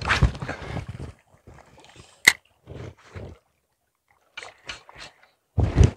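Handling noise from a spinning rod and reel during a cast and retrieve: a loud rustling rush in the first second, a single sharp click about two seconds in like the reel's bail snapping shut, then scattered light knocks and rustles and another rough rush near the end.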